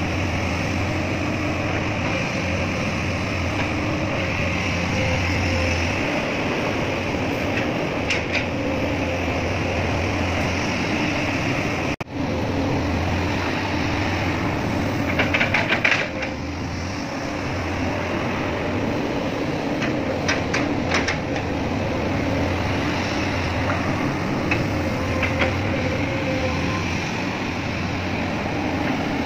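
Excavator's diesel engine and hydraulics running steadily with a low hum, with short bursts of metallic rattling a few times, loudest about halfway through.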